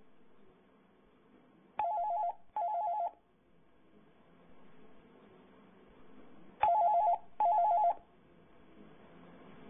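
Landline telephone ringing with a double-ring pattern, twice. Each ring is a pair of short warbling electronic tones, and the two rings come about five seconds apart.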